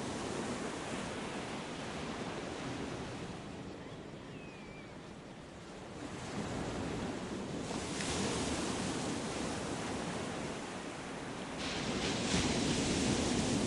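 A steady rushing noise with no pitch, in the manner of wind or surf, that swells and dips, growing louder about eight seconds in and again near the end.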